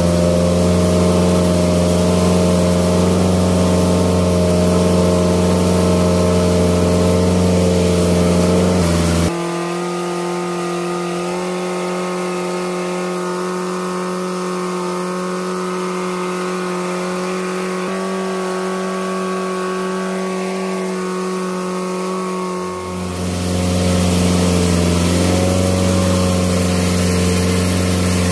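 Fishing boat's engine running steadily. Its deep low note cuts out suddenly about nine seconds in, leaving a lighter hum, and comes back near the end, while the net's pulling line is being hauled in.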